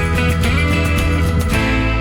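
Background music led by plucked and strummed guitar over a steady beat, changing chord about one and a half seconds in.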